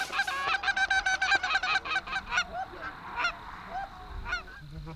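Canada geese honking: a rapid run of many short, overlapping honks, thickest for the first two and a half seconds, then thinning to scattered calls.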